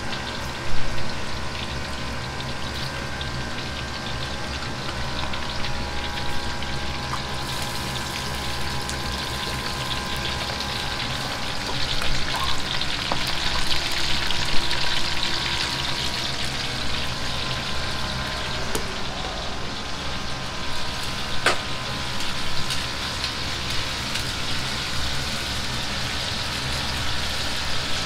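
Coated pieces of liver deep-frying in a wok of hot oil: a steady bubbling sizzle over a steady low hum, with a single short knock about a second in.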